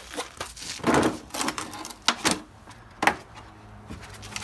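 Metal hand tools clinking and clattering in a series of short irregular bursts, with a few sharp clicks.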